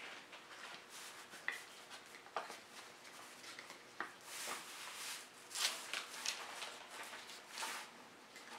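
Faint scattered clicks and short scraping rustles as a band clamp is handled and adjusted around a glued-up wooden box.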